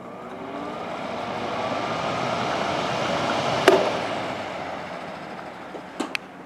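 SMC pedestal fan starting up on medium speed: a motor whine rising in pitch under a growing rush of air from the blades. A sharp click comes about three and a half seconds in, after which the sound fades.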